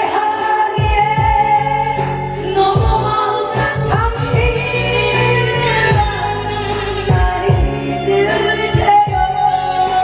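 A song sung over a karaoke-style backing track, with held, wavering melody notes over a steady kick-drum beat.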